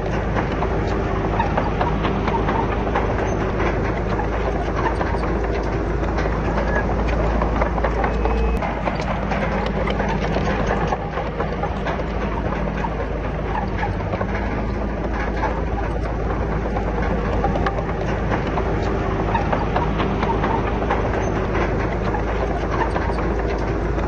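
Komatsu D31PX bulldozer's diesel engine running under load, with the clanking and rattling of its steel crawler tracks as it works rock and soil. The low engine rumble drops a little about a third of the way in.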